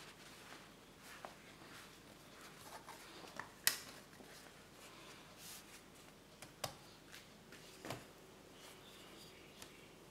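Baking paper rustling and crinkling as it is folded and smoothed by hand and with a plastic scraper, with a few sharp taps, the loudest about a third of the way in.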